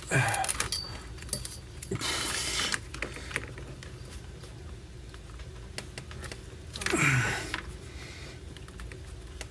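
Handling noise from fitting plastic cable-management strips and wiring: scattered small clicks and taps, with three short rustling scrapes near the start, about two seconds in and about seven seconds in.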